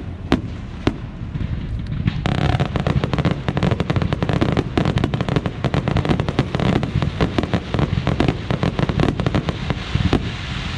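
Aerial fireworks bursting: a few separate bangs at first, then from about two seconds in a dense, rapid run of bangs and crackling as a barrage of shells and low comets goes up.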